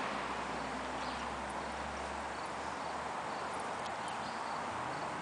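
Steady outdoor background noise, with a faint low hum that fades out about three seconds in and a few faint ticks.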